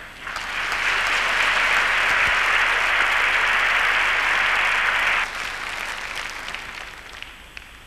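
Audience applauding in a large hall. The applause builds in the first half-second and holds steady, drops suddenly about five seconds in, then dies away.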